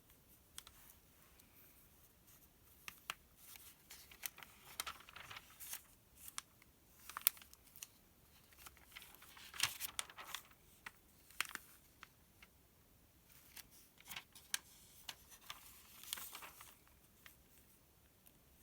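Paper pages of a sales circular being handled and turned: soft rustling and sliding swells with many sharp little ticks and taps in between.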